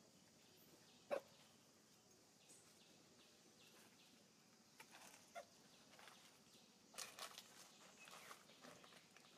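Near silence: faint outdoor ambience with a few short clicks and rustles. The sharpest click comes about a second in, and a small cluster comes near the end.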